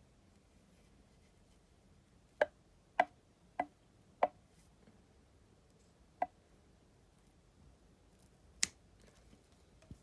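Fly-tying scissors snipping: four sharp snips in quick succession about 0.6 s apart, then two more spaced a couple of seconds apart.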